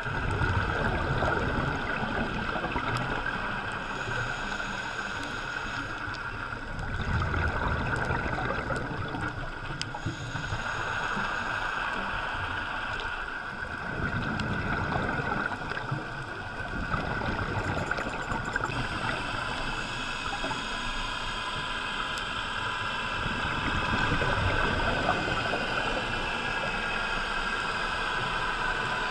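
Scuba diving heard underwater through a camera's waterproof housing: bubbles from a diver's regulator rumble in surges every few seconds, over a steady high hum.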